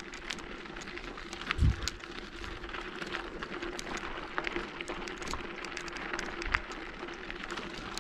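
Bicycle tyres rolling over a gravel road: a dense, irregular crackle of small stones popping and crunching under the wheels, with one low bump about a second and a half in.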